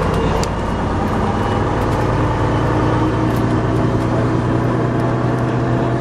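MCW Metrobus bus's Gardner diesel engine running steadily, a deep, even engine note.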